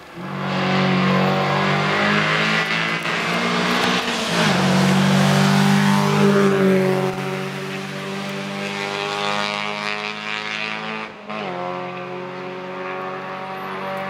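Rally car engine at full throttle as it accelerates through the bends and passes. There is a short lift about four seconds in, the pitch sags as it goes by, and there is a quick gear change just after eleven seconds.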